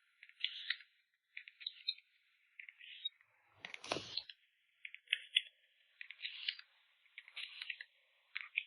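Light clicks and crinkling rustles of plastic sleeves and packaging being handled while photocards are packed, in short bursts every half second to a second, with one fuller rustle about four seconds in.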